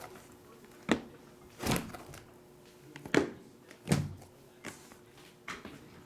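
Trading card boxes handled on a table: a series of about six separate knocks and thuds as the boxes are picked up, moved and set down.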